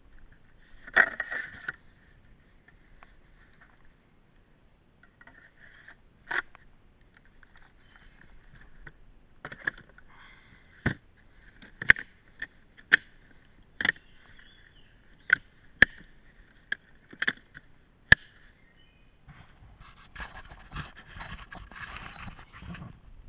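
A plastic toolbox scraping and knocking against a wooden cargo box as it is handled and packed. There is a scrape about a second in, then a string of sharp knocks and clicks roughly a second apart, and rustling scrapes near the end.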